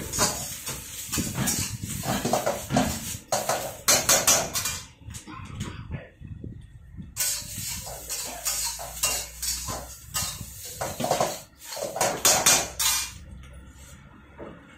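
Metal spatula scraping and clanking against a black iron kadai as vegetables are stir-fried, in quick repeated strokes. The stirring pauses briefly about five seconds in, picks up again, and stops near the end.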